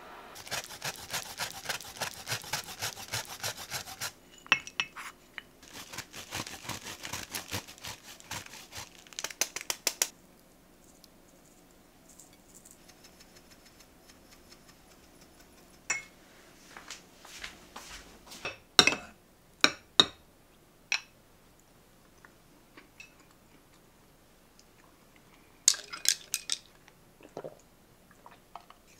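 Wooden spoon stirring soup in a ceramic soup mug, rapid scraping strokes against the cup for about ten seconds with a short break midway. After a quiet stretch come scattered sharp taps and clinks of tableware.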